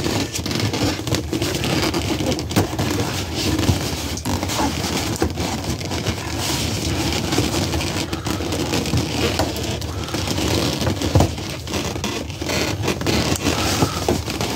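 Inflated latex balloons rubbing against each other and against hands as they are pressed and flattened into a balloon clip: a continuous close rubbing with many small clicks.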